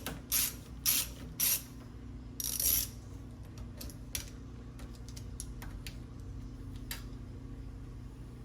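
Screws being backed out of a deadbolt latch faceplate with a screwdriver: a few short scraping turns and one longer one in the first three seconds, then scattered small metallic clicks as the latch is handled.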